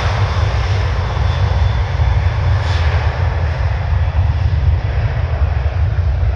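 Boeing 737-800's CFM56-7B jet engines at full takeoff power: a steady, loud rumble, heaviest in the low end, as the aircraft rolls down the runway.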